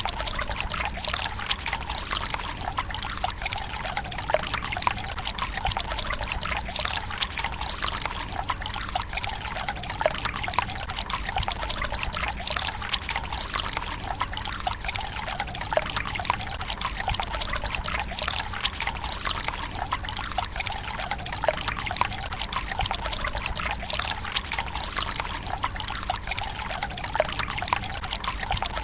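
Water running from a bamboo spout into a Japanese tsukubai stone basin: a steady trickling splash with many small drips.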